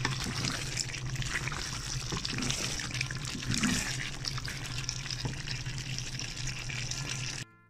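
Beef and potato curry sizzling and bubbling in a pot as it is stirred with a wooden spatula, the thick spiced sauce being cooked down (kosha), with small wet clicks and squelches. A steady low hum runs underneath, and the sound cuts out suddenly near the end.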